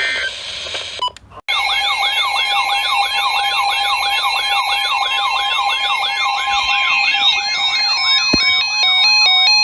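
Several weather radios sounding their alert alarms together, the signal that a new warning is coming in: a warbling siren-like tone sweeps up and down about three times a second over steady tones. After a brief gap about a second in the alarms start, and near the end stepped electronic beeps of changing pitch join in.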